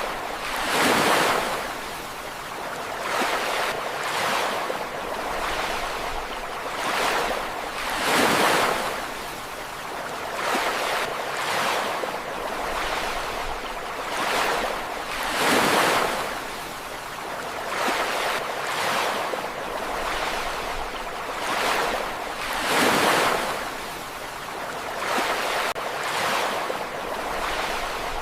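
Ocean waves breaking on a beach in repeated washing surges, a bigger wave crashing about every seven seconds with smaller ones in between.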